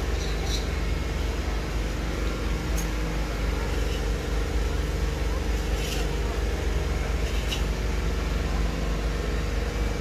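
An engine running steadily, a constant low hum, with a few faint ticks.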